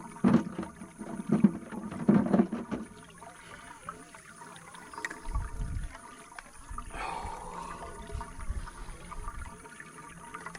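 Water running and splashing from an artesian well's pipe. There are a few loud knocks in the first three seconds, and a low rumble about halfway through.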